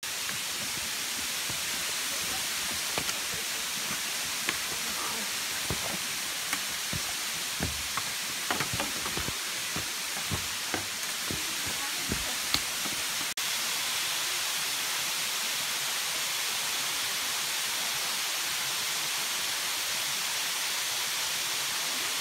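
Steady rushing of a forest waterfall. Irregular footfalls and knocks on the trail sound over it for the first half. After a cut about 13 seconds in, only the even rush of the falling water remains.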